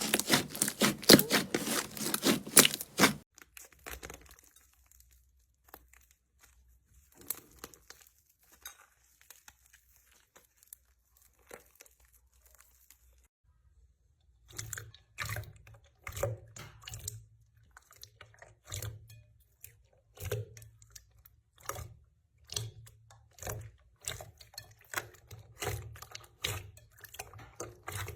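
Slime being handled: pressed, poked and stretched, giving sharp clicks and crackles. The clicks come in a dense run for the first three seconds, thin out to a few faint ones, and return as an irregular run of clicks and soft pops from about fourteen seconds in.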